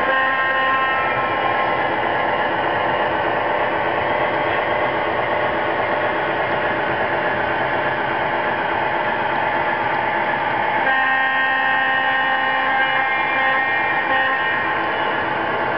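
O scale model freight cars rolling past on three-rail track, a steady running noise throughout. A model diesel horn from the Lionel RS-11's sound system sounds over it, ending about a second in and blowing again for about four seconds in the second half.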